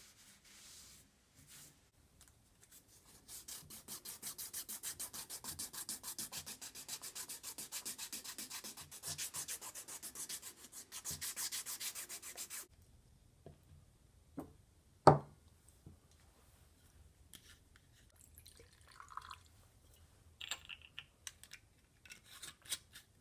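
Sandpaper rubbing back and forth on a fillet knife's wooden handle scales: quick, even strokes, several a second, for about ten seconds, then stopping abruptly. Afterwards come a few light clicks and one sharp knock.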